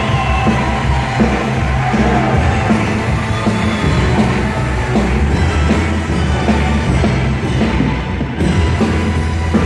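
Loud band music with a heavy, sustained bass.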